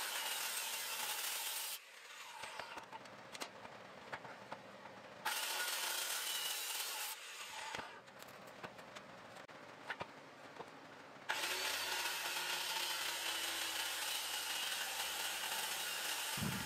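Handheld circular saw cutting through a thick walnut slab in three stretches: a short one at the start, another about five seconds in, and a longer one from about eleven seconds on. In the quieter gaps between them there are scattered knocks as the slab and saw are handled.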